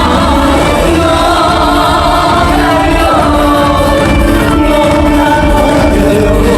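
Upbeat trot song played live through a loud PA system: a woman singing over a backing track with a steady beat.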